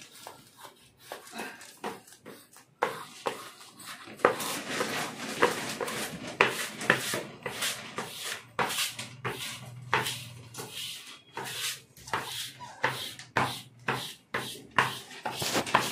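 Plastic squeegee scraped in repeated strokes over a self-adhesive marble-pattern sheet, smoothing it down onto a kitchen slab. The strokes come sparsely for the first few seconds, then at about two a second.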